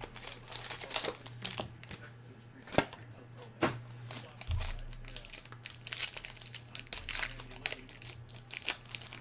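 Trading-card pack wrapper crinkling and tearing as the pack is opened, with a run of crackles and a couple of sharper clicks about three seconds in. A steady low hum sits underneath.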